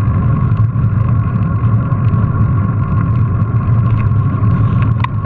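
Mountain bike rolling over paving: a steady heavy rumble with a constant high whine and faint light rattles, as heard through a GoPro's waterproof case.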